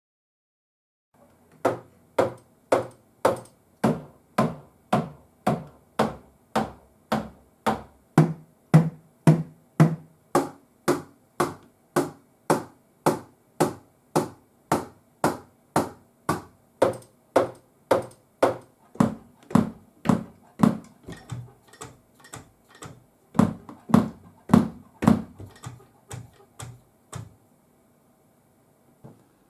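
Unamplified stick strikes on a Roland TD-17KV-S electronic drum pad: a dull, short tap, repeated evenly at just under two hits a second. The hits get lighter for a while and then heavier again before they stop near the end.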